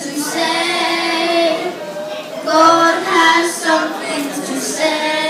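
Group of children singing an anthem, holding long sung notes.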